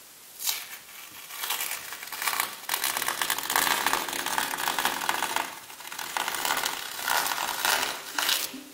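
Green masking tape being peeled off the edge of a painted canvas: a crackling, tearing rasp in several pulls, with a lull about halfway through.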